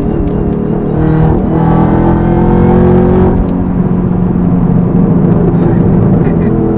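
Supercharged 6.2-litre V8 of a Chevrolet Camaro ZL1, fitted with a cold air intake and cat-back exhaust, accelerating under throttle: its pitch climbs between about one and three and a half seconds in, then it runs on as a steady loud drone.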